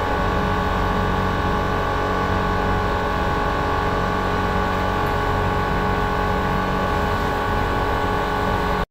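xTool MetalFab laser cutter running while cutting sheet metal: a steady machine hum with several held tones over an even hiss of the assist air, unchanging throughout and cutting off abruptly near the end.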